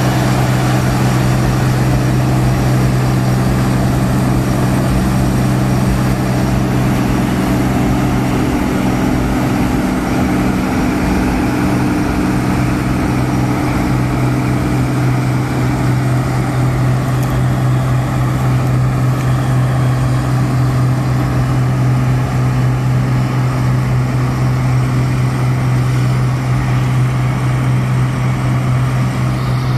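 Zmaj 162 tracked combine harvester running under load while harvesting: a steady, unchanging machine drone of engine and threshing works, with a strong low hum.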